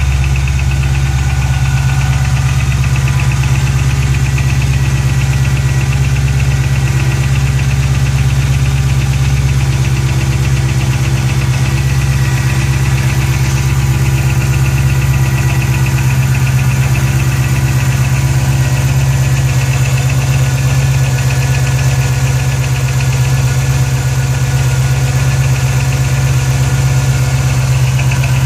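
Ford Shelby GT500's V8 idling steadily on a cold start, with a fast, even ticking from the engine running along with the idle.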